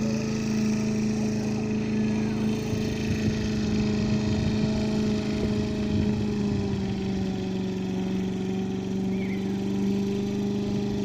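Petrol lawnmower engine, freshly repaired, running steadily while mowing grass, with its speed dipping slightly about two-thirds of the way through.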